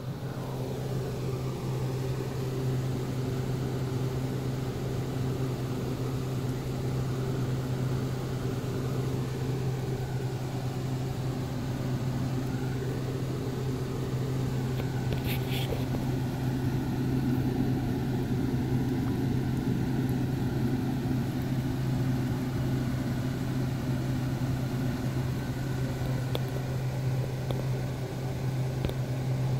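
Steady low electric motor hum, such as a room fan, unchanging throughout, with a brief click about halfway through.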